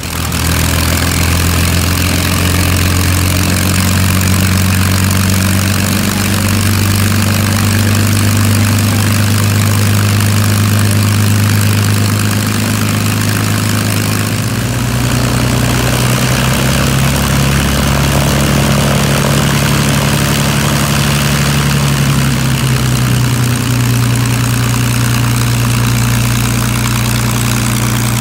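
Propeller airplane's piston engine running steadily, with its engine note shifting about halfway through and again a little later.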